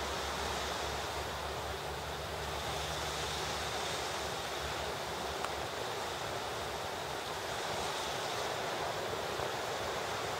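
Small waves washing ashore as steady surf, with wind buffeting the microphone as a low rumble during the first half.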